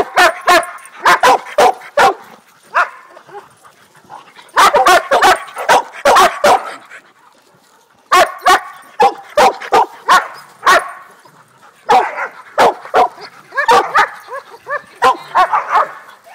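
Dogs barking and yipping during tug-of-war play, in four bursts of quick, sharp calls separated by short lulls.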